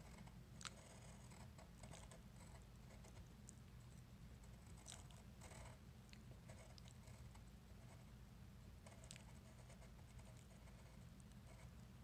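Faint scratching of a wooden pencil on paper as lines are drawn, in short irregular strokes, over a steady low hum.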